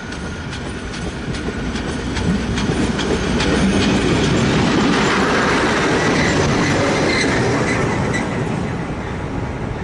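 ST48 diesel locomotive running light past at close range: engine rumble and wheels clicking over rail joints, growing louder as it nears, loudest as it passes about halfway through, then fading.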